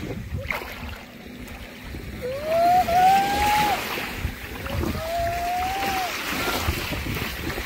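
Waves washing in on a beach, with two long, high, held cries from a voice over the surf, each rising and then holding for over a second. The first cry is the loudest sound.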